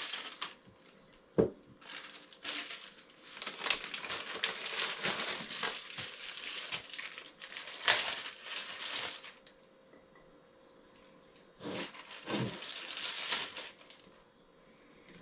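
Raw chicken drumsticks being handled and pushed into glass canning jars, with a plastic bag crinkling, in rustling stretches of a few seconds. There is a sharp knock about a second and a half in, and two duller knocks around twelve seconds in.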